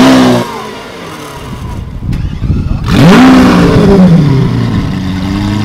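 Lamborghini Centenario's V12 engine revved sharply twice, once at the start and once about three seconds in. Each time the pitch climbs fast and then falls back, and after the second rev it settles to a steady lower note.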